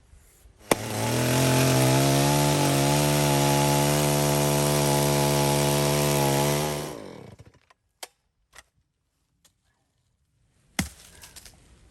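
Chainsaw engine running at steady high revs for about six seconds, then dying away. A few light knocks and one sharp knock follow near the end.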